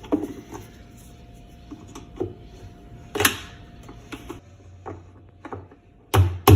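Screwdriver working against the metal drive hub of a Whirlpool washer, prying at a plug that is stuck fast: scattered clicks and scrapes, with a few louder knocks near the end.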